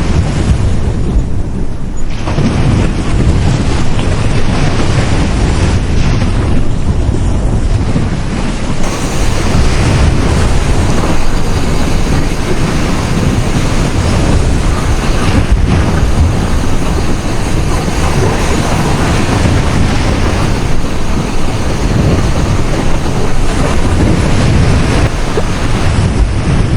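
Sea waves washing and breaking on a beach as a continuous rush of surf, heavy in the low end, with wind buffeting the microphone. The hiss of the surf grows fuller about a third of the way in.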